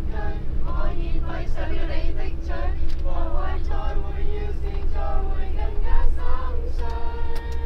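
Several voices singing together inside a moving coach bus, with a few long held notes near the end, over the steady low rumble of the bus.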